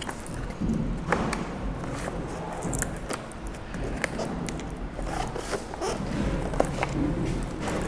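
Cardboard shipping box being opened by hand: the cardboard tears and rustles as its top flap is pulled open, with scattered knocks and clicks as the box is handled.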